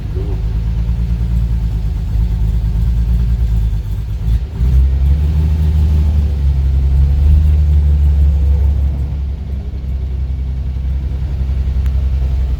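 The 1949 Rover P3's engine running with a low, steady rumble. About four and a half seconds in it briefly dips, then runs louder and stronger for several seconds before easing back near the end.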